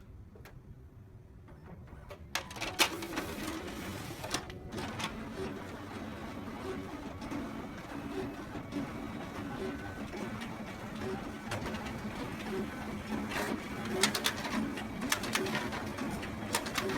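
Photocopier running: it starts up with clicks about two seconds in, then runs steadily with a low hum and light repeating clicks, with a burst of sharper clicks near the end.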